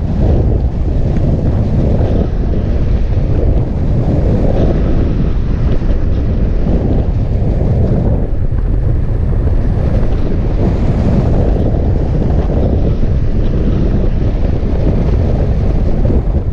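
Loud, steady wind rumbling over the microphone of a camera mounted on a hang glider in flight: the rush of the glider's airspeed past the mic, deep and even throughout.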